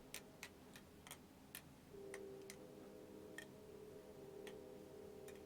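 OSP Matrix balisong being flipped: about ten sharp, irregularly spaced clicks as the handles swing around and strike the blade, with a faint steady hum underneath.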